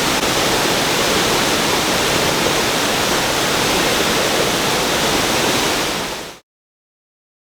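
Rain-swollen water rushing over a lake's overflow spillway: a loud, steady rush of falling and tumbling water that fades out quickly a little over six seconds in, leaving silence.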